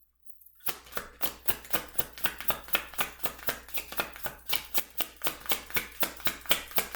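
A deck of tarot cards being shuffled by hand: a quick, even run of card strokes, about four or five a second, starting just under a second in.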